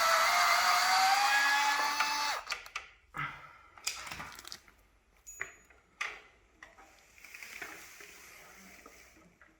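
A power screwdriver whines as it backs out screws, its pitch wavering under load, and stops about two seconds in. Scattered clicks and knocks of metal parts being handled follow.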